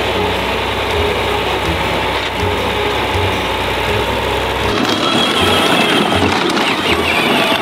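Farm tractor engine running steadily with an even low pulse, over background music. About two-thirds of the way through, the engine sound stops and music with a steady beat carries on.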